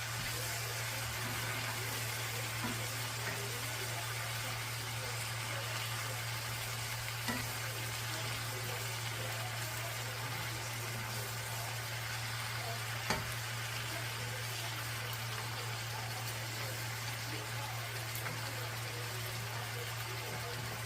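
Cabbage, onions and garlic frying in bacon grease in a pan, a steady sizzle, with two sharp taps of the stirring utensil against the pan, one about a third of the way in and one past the middle.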